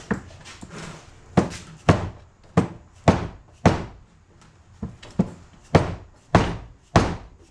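About a dozen sharp blows, roughly two a second with a short lull in the middle, as a bearing is knocked off a Yamaha Warrior 350 camshaft.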